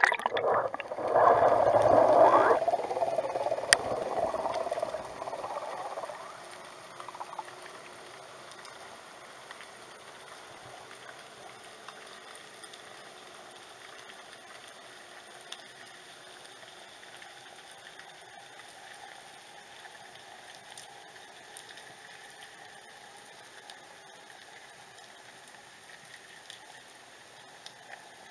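Underwater sound of a camera just dropped into the sea: air bubbles gurgling and rushing for the first few seconds, fading by about six seconds into a faint steady hiss of seawater with scattered tiny clicks.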